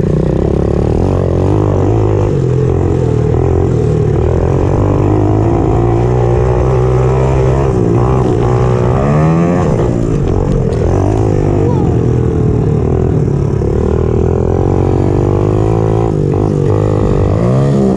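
Pit bike engine heard from onboard, revving hard as the rider races the motocross track, its pitch rising and falling with the throttle and gear changes, with a sharp climb in revs about halfway through and again near the end.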